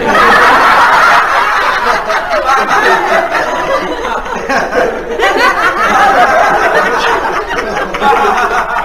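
An audience laughing after a joke's punchline: loudest at first, easing off, then picking up again about five seconds in.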